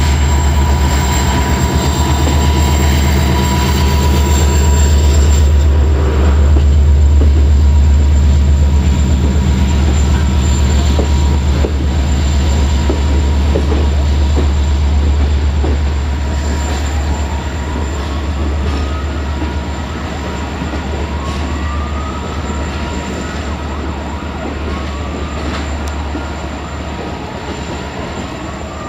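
Diesel locomotive 65-1300-6 runs past with a loud, deep engine drone and a steady whine, then draws away as its passenger coaches roll by and the drone fades. From about halfway, a rising wheel squeal comes several times, a few seconds apart.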